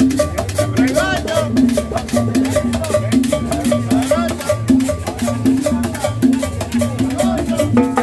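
Live Latin dance band playing, with upright bass, drums and saxophone over a steady, quick dance beat.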